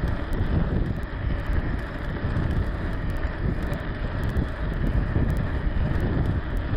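Wind buffeting the microphone of a handlebar-mounted camera on a moving bicycle, a steady low rumbling noise with no breaks, mixed with the rumble of the tyres on asphalt.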